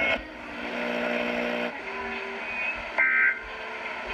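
Emergency Alert System end-of-message data tones: one short, loud, buzzy burst of digital tones about three seconds in, with the next burst starting at the very end, marking the close of the test alert. Steady low tones fill the first second and a half.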